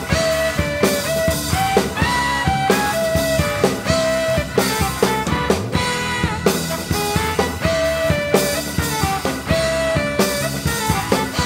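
Rock drum kit played live, with frequent snare, tom and cymbal hits, over a backing track that carries a held, stepping lead melody.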